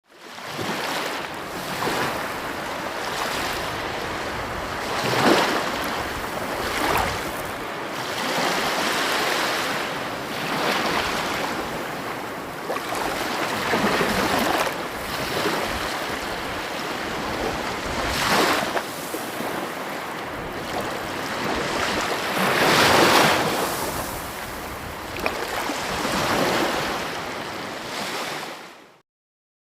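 Sea waves breaking and washing up on a shore: a continuous rush of surf that swells with each wave, with several louder surges. It cuts off suddenly near the end.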